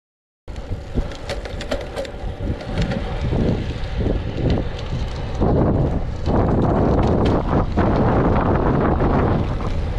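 Wind rushing over the camera microphone as a road bike coasts downhill, growing louder about halfway through as it picks up speed, with a few light clicks from the bike. The sound drops out entirely for the first half second.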